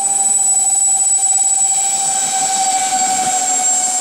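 Electric ducted fans of a foam RC Lockheed C-141B Starlifter model running at full throttle on its takeoff roll across grass: a steady high-pitched whine over a lower steady hum.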